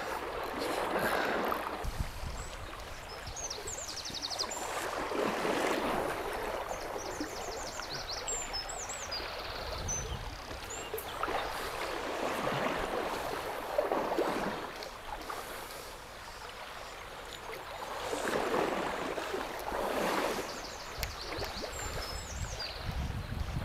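Shallow river water rushing over a riffle: a steady wash of noise that swells and eases every few seconds, with a few short high chirps now and then.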